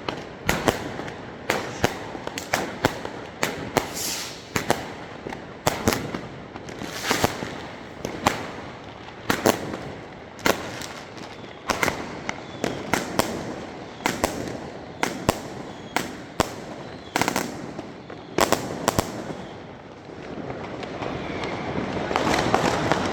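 Fireworks and firecrackers going off all around: irregular sharp bangs, sometimes several a second, some trailing off in crackle. Near the end a continuous rushing crackle swells up under the bangs.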